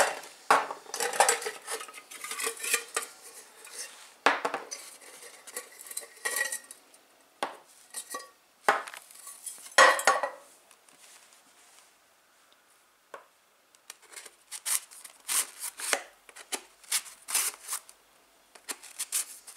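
Rocket-motor propellant grains handled in a metal tin and slid into the motor's liner tube: a run of irregular clinks and knocks, with a quiet stretch of a couple of seconds just past the middle.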